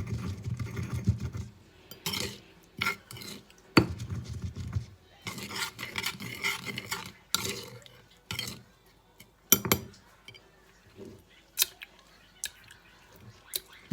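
A metal spoon stirring, scraping and clinking against a bowl while a salad dressing is mixed, with a few sharper knocks about four and nine and a half seconds in.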